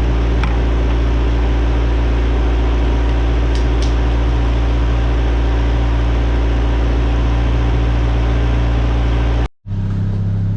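Ford Ranger's fuel-injected engine idling steadily, a deep, even hum, now running smoothly after a stuck-open injector was freed. The sound breaks off briefly near the end.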